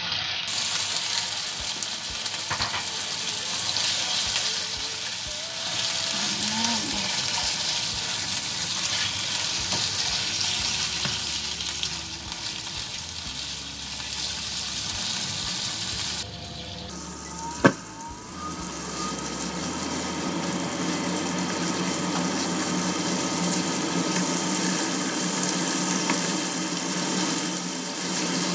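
Chicken pieces tipped into hot oil in a frying pan, starting a loud sizzle at once, and stirred with a spatula as they fry. The sizzle dips for a few seconds about two-thirds through, with one sharp knock.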